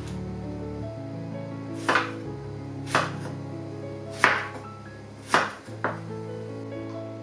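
Knife chopping through a tomato onto a wooden cutting board: five sharp knocks spread over about four seconds, the last two close together, over background music.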